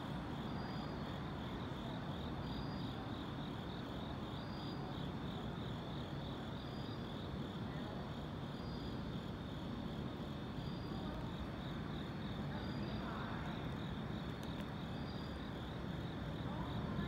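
Crickets chirping in a steady, fast-pulsing high trill, over a low, steady background rumble.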